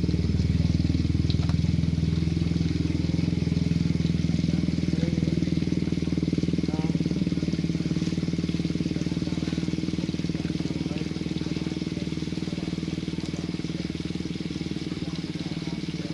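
Small engine running steadily at an even speed, slowly getting quieter over the stretch.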